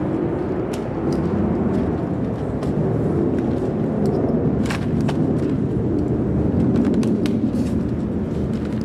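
Steady, low rumbling outdoor background noise, with a few faint scattered clicks.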